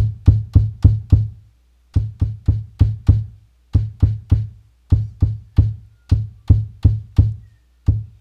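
Kick drum sample in Native Instruments Maschine, played by tapping the controller's pad over and over in quick runs of four to six hits, about four a second, with short pauses between runs. It is run through a low-pass filter with the highs cut, so the hits are mostly low end with short decays.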